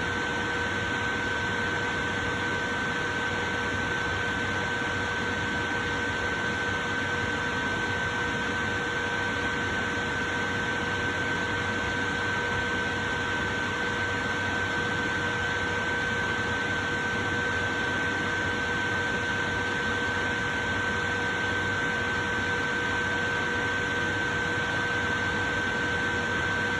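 Portable electric fan running steadily: an even rush of moving air with a constant motor hum, a high tone above two lower ones, that never changes.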